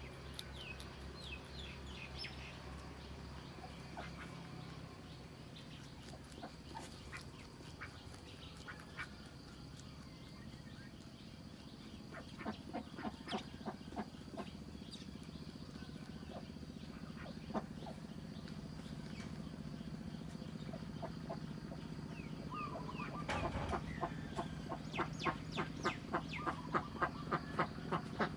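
Rabbit chewing water spinach stems: quick, crisp crunches at about three to four a second, in short runs, loudest and most continuous near the end.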